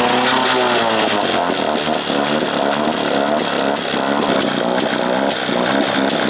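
Two-cylinder outboard motor running roughly, its revs wavering up and down, with a sharp tick about three times a second. The owner thinks it almost sounds like a timing issue.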